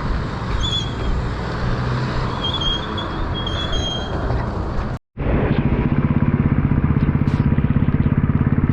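Motorcycle riding on the road: wind and road rumble on the helmet or bike-mounted action-camera mic, with a few short high chirps in the first half. After an abrupt cut about five seconds in, the motorcycle's engine runs steadily under way with a fast, even pulse.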